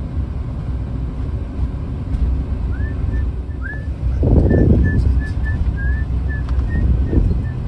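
Winnebago Solis camper van driving, a steady low road-and-engine rumble with a louder rush about four seconds in. Over it runs a string of short, high chirps, a few of them rising.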